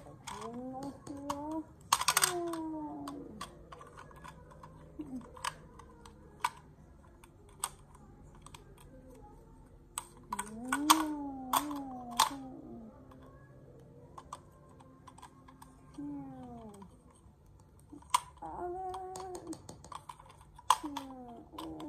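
Hard plastic action figures clacking against each other and knocking on a tile floor in many sharp, irregular clicks. A child's voice makes short wordless fight noises that slide up and down in pitch in between.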